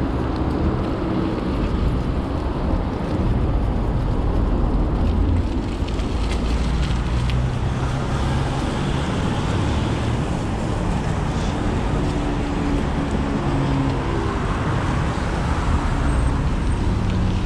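Steady rumble of a road vehicle, with an engine hum whose pitch shifts slightly now and then.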